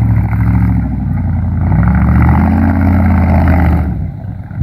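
Fuel-injected 5.7-litre V8 of a Suzuki Vitara-bodied offroader on a Mercedes G chassis, working under load as the truck crawls up through a muddy ditch. The revs rise about two seconds in, hold, and fall away near the end.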